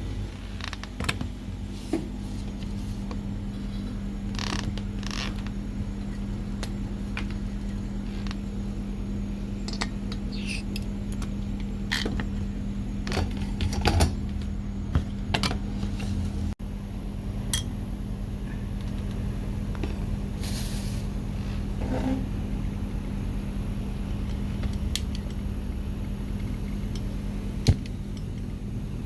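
Scattered clicks, knocks and light clinks of utensils and cookware being handled over a steady low hum that starts suddenly at the beginning.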